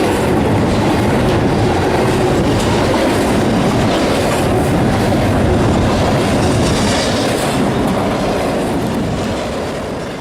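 Train running on rails, a steady rolling rumble of wheels on track that fades away near the end.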